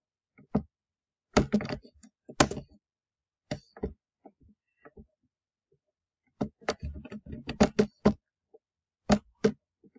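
Computer keyboard keystrokes and mouse clicks, picked up by the computer's microphone: irregular sharp clicks in small clusters, with a quicker run of keystrokes about six and a half seconds in.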